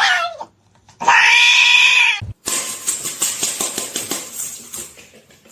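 A cat yowling: two loud, drawn-out pitched calls, each about a second long, the first ending just after the start and the second about a second in. They are followed by a fading stretch of scratchy noise.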